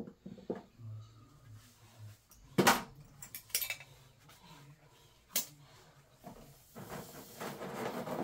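A few scattered knocks and light clatters, the sharpest about two and a half seconds in, then a rustling hiss building near the end.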